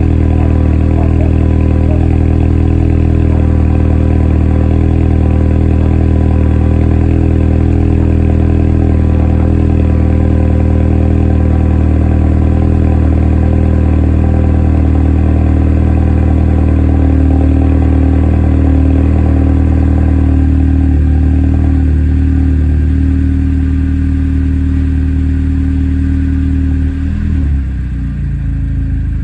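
Volkswagen Scirocco R's turbocharged 2.0-litre four-cylinder idling steadily after a cold start, through a Remus cat-back exhaust with the middle silencer removed. About twenty seconds in, the idle settles slightly quieter and lower, and it wavers briefly near the end.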